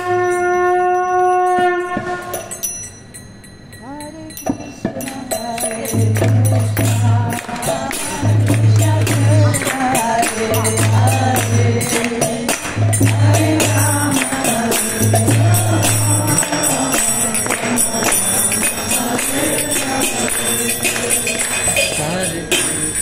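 Devotional group singing with small hand cymbals ringing in a steady rhythm, after one long held tone of about two seconds at the start.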